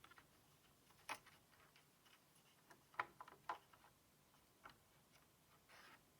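Faint, scattered small clicks and taps of tools and parts being handled, the loudest a cluster about three seconds in, followed by a short scraping rustle near the end.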